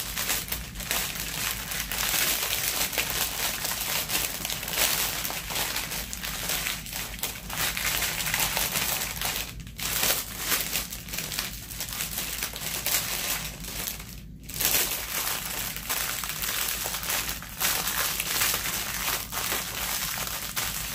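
Crinkling of a clear plastic bag and the small plastic bags of diamond painting drills inside it, as they are handled, packed and rolled up, with two brief pauses.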